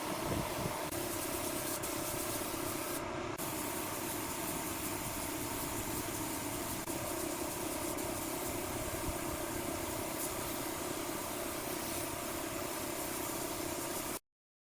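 A machine running steadily with an even noise, which cuts off abruptly near the end.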